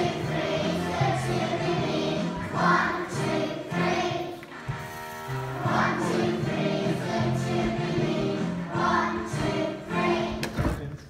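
Group of young children singing a song together, with steady accompaniment underneath; the singing stops near the end.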